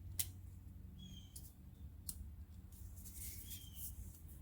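Piston rings being fitted onto a two-stroke ATV piston: a sharp metal click just after the start and a fainter one about two seconds in, over a low hum.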